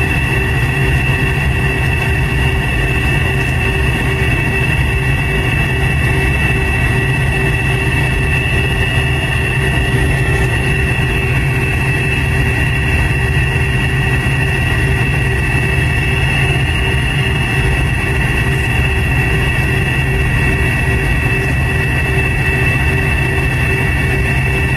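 Cabin noise of a McDonnell Douglas MD-88 taxiing, its tail-mounted Pratt & Whitney JT8D-200 series turbofans running steadily at low taxi power: a low rumble with a steady high whine over it.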